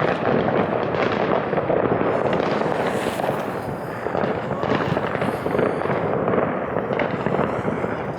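Fireworks and firecrackers crackling and popping in a dense, unbroken barrage of many small bangs at once.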